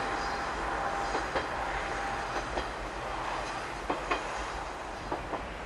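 A KiHa 120 single-car diesel railcar passing at a distance, its wheels clicking over rail joints, often in pairs, over a steady running noise.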